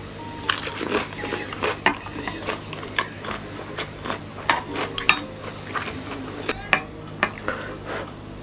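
Metal chopsticks clicking and scraping against a stainless steel bowl and plates while eating tteokbokki: irregular sharp clicks and small clatters.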